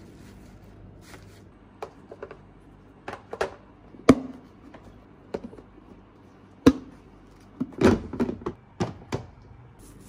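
Plastic food-storage containers being closed and stacked: a series of sharp plastic clicks and knocks as lids are pressed shut and boxes set down on each other, two loudest about four and six-and-a-half seconds in, then a quick run of clicks near the end.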